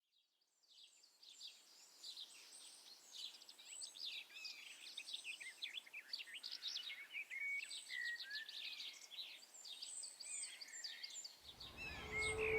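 A chorus of several songbirds chirping and trilling, fading in from silence. Soft music comes in about a second before the end.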